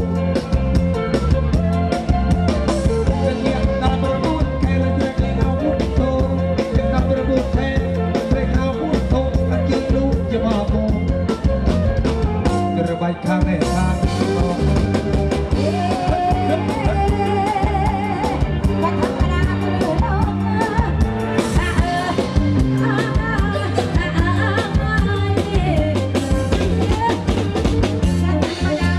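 Live kantrum band music over a PA, with a steady drum-kit beat, and a woman and a man singing into handheld microphones.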